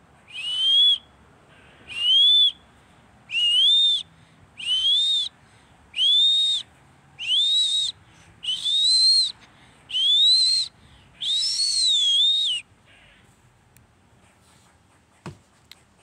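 A run of nine high-pitched animal calls, one about every second and a half, each rising and then dipping slightly at the end. The last few calls are a little longer.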